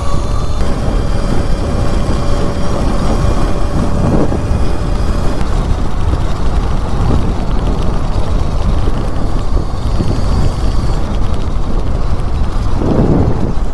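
Heavy wind rushing over the microphone of an electric mini bike at speed, with the QS138 electric motor's steady whine audible for the first five seconds or so before it drops out as the bike slows.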